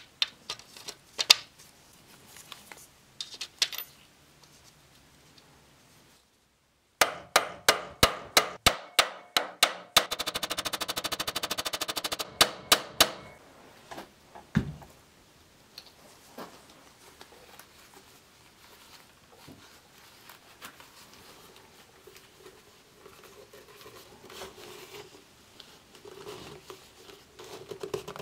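Light clicks of small metal parts being handled and fitted on a steel helmet. In the middle comes a loud run of sharp cracks about three a second, then a fast steady rattle for about two seconds, then a few more cracks. This is the loudest part, and it sounds like a burst of gunfire. Near the end there is a dull thump, then faint handling over a low hum.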